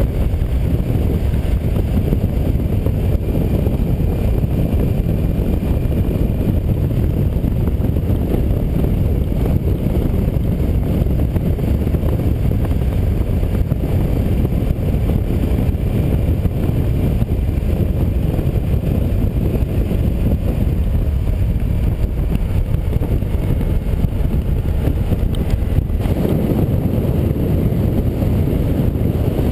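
Steady wind rush on a motorcycle-mounted camera's microphone at cruising speed, with the KTM 990's V-twin engine running evenly underneath.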